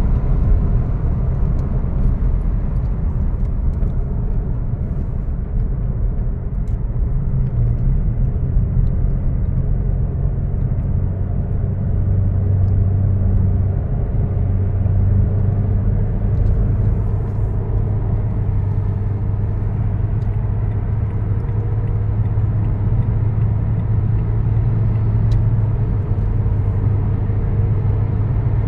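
Steady road and engine noise heard from inside a moving car's cabin: a continuous low rumble with a droning hum underneath.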